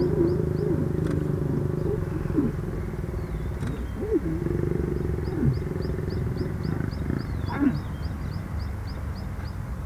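White lions growling low while mating, with short sharper snarls through it; the loudest comes about seven and a half seconds in, at the end of the mating. A bird chirps in a quick high series in the background.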